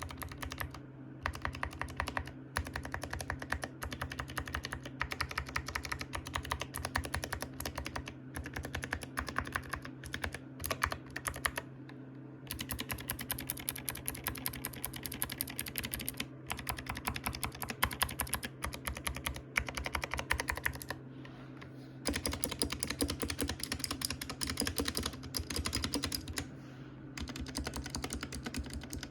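Typing on an Epomaker SK61S mechanical keyboard with spray-lubed Gateron Optical Blue clicky switches: fast, continuous runs of key clicks, with short pauses now and then.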